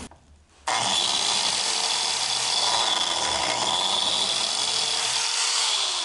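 Electric biscuit (plate) joiner starting suddenly about a second in and running steadily with a high whine as it cuts a slot into the edge of a hardwood board; the sound begins to fade near the end.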